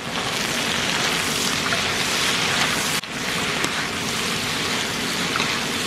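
Crawfish frying in butter with garlic and onion in a hot pot, giving a loud, steady sizzle that dips briefly about three seconds in.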